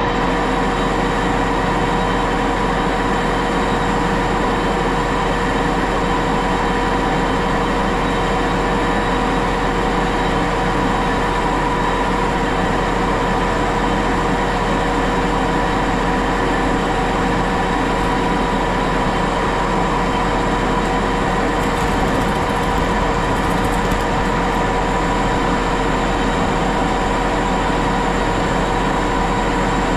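Antique Axelson engine lathe running loud and steady at 850 rpm with a steady whine, its spindle turning a steel workpiece while the tool takes a light finishing cut under power feed.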